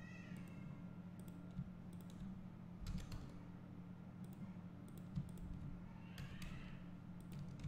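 Scattered computer keyboard key presses and mouse clicks, about eight sharp clicks at irregular intervals over a steady low hum.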